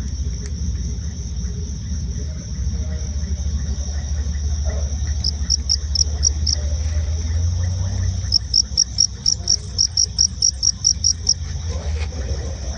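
Crickets singing: a steady high trill, joined about five seconds in and again from about eight seconds by rapid pulsed chirps at about five a second. A low rumble runs underneath.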